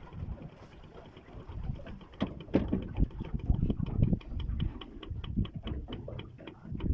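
Spinning reel being cranked to retrieve a cast spoon lure, a regular quick clicking of about four ticks a second that starts about two seconds in, over low knocks on the boat and wind on the microphone.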